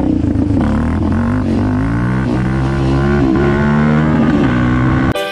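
Yamaha Raptor 700 sport quad's single-cylinder four-stroke engine pulling away, its note climbing and dipping several times as the rider rolls on and off the throttle. It cuts off suddenly near the end.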